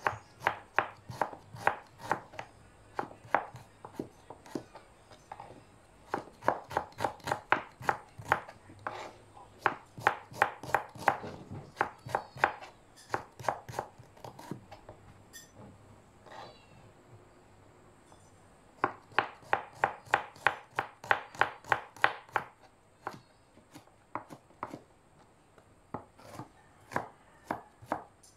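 Kitchen knife slicing and chopping shallots and garlic cloves on a plastic cutting board: quick runs of sharp knocks, about four a second, broken by short pauses.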